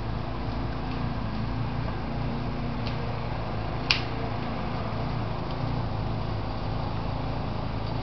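Steady low machine hum with one sharp click about four seconds in.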